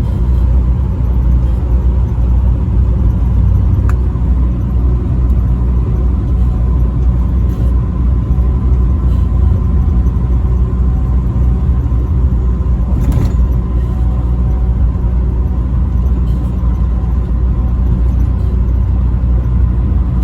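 Semi truck's diesel engine and road noise droning steadily as the truck drives on the highway, with a couple of faint ticks.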